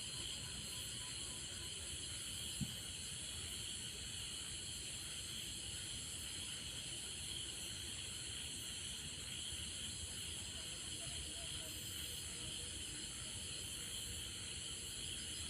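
Insects chirring steadily in a high, hissing drone, with a single faint click about two and a half seconds in.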